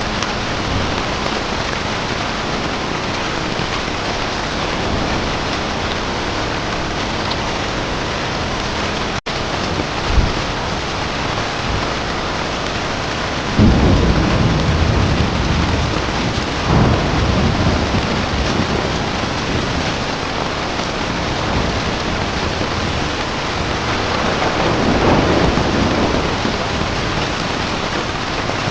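Steady heavy rain. About halfway through, thunder rolls in low for several seconds, and a softer rumble swells again near the end.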